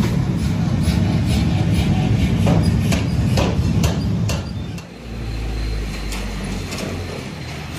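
Metalworking workshop noise: a machine running with a low rumble, with irregular sharp metallic knocks and clinks. A little under five seconds in, the sound changes to a lower, steadier machine hum with only a few knocks.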